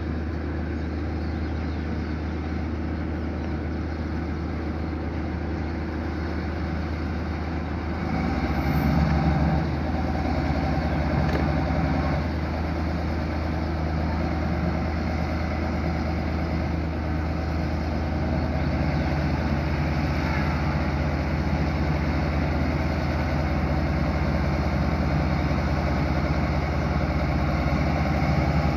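Wheel loader's diesel engine running steadily. About eight seconds in it grows louder and stays up as the loader climbs the ramps onto a railway flatcar under load.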